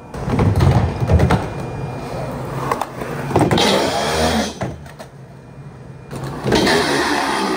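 Skateboard wheels rolling over concrete, then the trucks grinding along the steel pipe coping of a long curb-height slappy rail about three and a half seconds in, and the board rolling on again afterwards.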